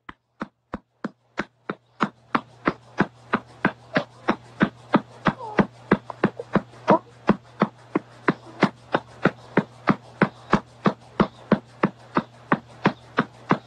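Rapid, even tapping: a few spaced taps at first, then about four sharp taps a second from two seconds in, over a faint low hum.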